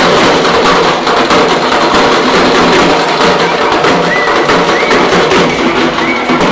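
Parai frame drums beaten with sticks in a dense, fast ensemble rhythm, with sharp, dry strokes.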